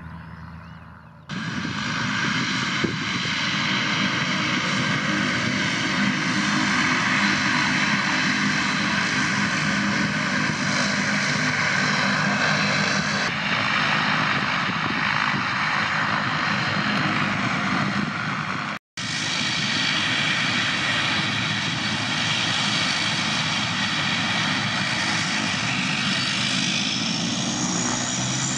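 Twin turboprop engines of an Air New Zealand Dash 8-300 running on the runway: a loud, steady propeller drone with a high whine over it. It starts abruptly about a second in and breaks off briefly about two-thirds of the way through.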